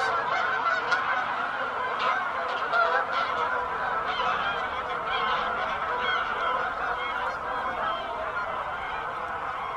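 A large flock of geese flying overhead, many birds honking at once in a continuous overlapping chorus.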